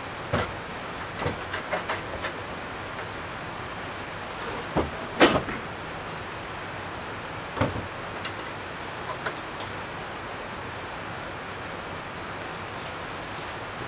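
Steady rain with scattered knocks and bumps from someone moving about and handling things in a wooden shelter; the loudest knock comes about five seconds in.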